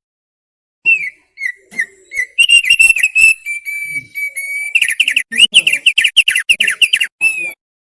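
Thick-billed heleia (opior paruh tebal) singing one loud phrase. It opens with a few separate whistled notes, holds a steady whistle in the middle, then breaks into a fast run of about eight chirping notes a second before stopping.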